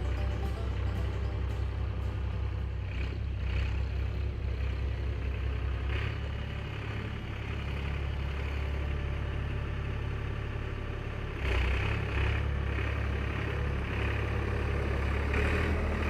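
Massey Ferguson 451 tractor's diesel engine idling steadily, growing louder about eleven and a half seconds in.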